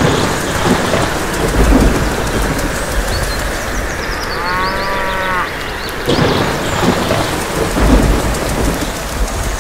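Thunderstorm: steady heavy rain with thunder rumbling twice, about two seconds in and again near the end. A cow moos once in the middle.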